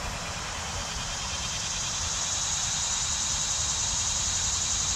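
Steady high-pitched insect chorus, growing slightly louder partway through, over a low rumble.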